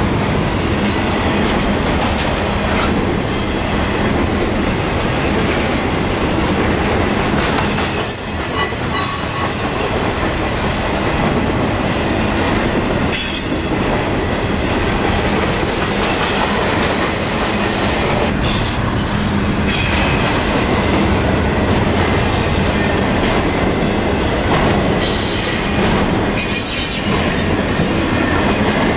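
Double-stack intermodal freight cars rolling past close by, with steady wheel-on-rail noise and a rhythmic clatter over the rail joints. Thin high-pitched wheel squeal comes and goes several times.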